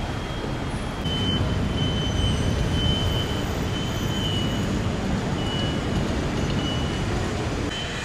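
Steady low rumble of road traffic, slightly louder from about a second in, with a faint high tone that comes and goes.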